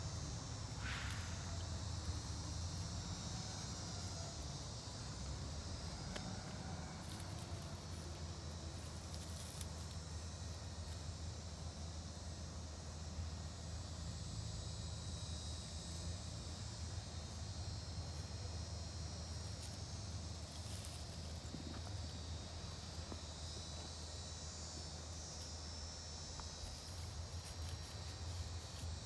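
Steady chorus of insects trilling, high-pitched and unbroken, over a low steady rumble.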